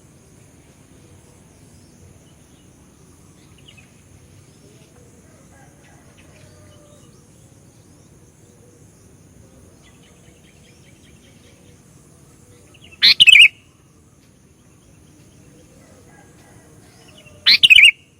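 Sooty-headed bulbul (kutilang) calling: two loud, short calls about four seconds apart, one past the middle and one near the end, over faint scattered chirps.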